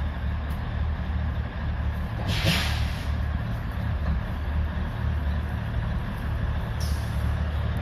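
Matheran Hill Railway narrow-gauge toy train running with a steady low rumble, broken by a brief hiss about two and a half seconds in and a shorter, fainter one near the end.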